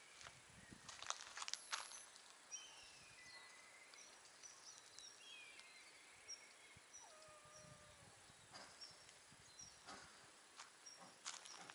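Faint small birds chirping in short high notes and falling calls, with one cat meow about seven seconds in. A few soft footstep clicks on pavement come near the start and the end.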